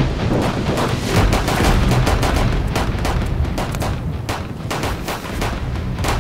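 Rapid, irregular handgun fire from a line of shooters firing together, the shots overlapping into a ragged volley.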